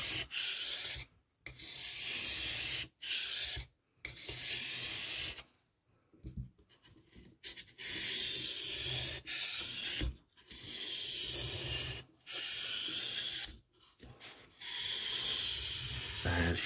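Knife blade, held at a set angle by a clip-on blade guide, scraped back and forth along a wet Parkside 2-in-1 whetstone. There are about a dozen separate scraping strokes, each lasting about a second, with short pauses between them.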